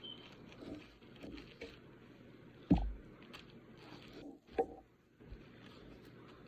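A spoon spreading sticky chunky peanut butter onto a roll, with soft scraping and squishing and two short knocks, about three and four and a half seconds in.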